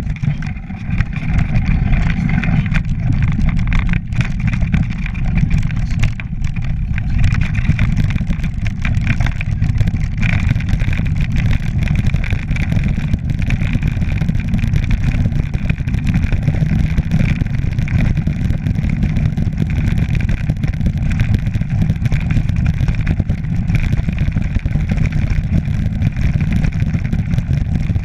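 Mountain bike riding down a rough, stony track: a heavy, steady low rumble of wind buffeting the microphone and tyres on the ground, with constant rattling and knocking as the bike runs over rocks.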